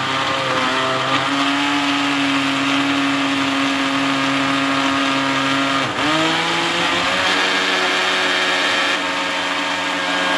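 Countertop jug blender running steadily, blending green peppers, oil and spices into a liquid marinade. Its motor pitch dips briefly about six seconds in, then steadies again.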